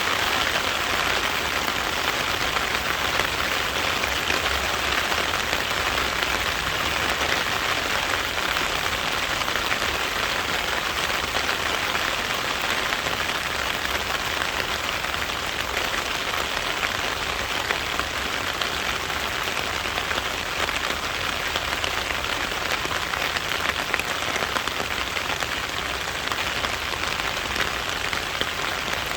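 Steady rain falling, an even hiss made of countless small drops.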